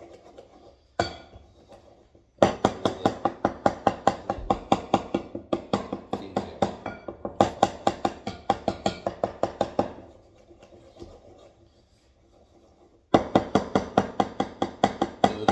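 Wooden spoon beating mashed banana in a bowl, knocking against the bowl in a fast steady rhythm of about five strokes a second. The beating stops for about three seconds past the middle and then starts again.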